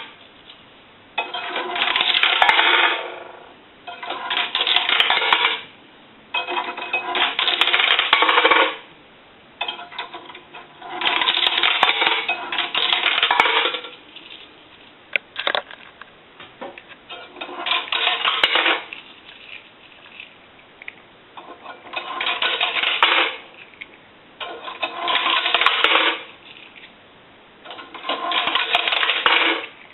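Coins dropped one by one into a Western Electric single-slot payphone, each clattering down through the coin validator into the cash box. There are about nine separate clatters, each lasting a second or two, about three seconds apart.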